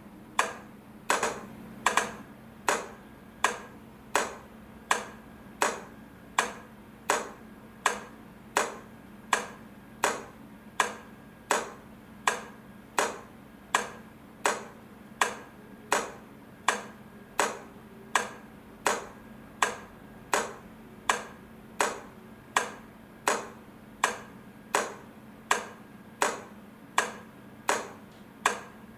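Railway crossing light flasher clicking steadily as the lights alternate, about one and a half sharp clicks a second, each with a short ring.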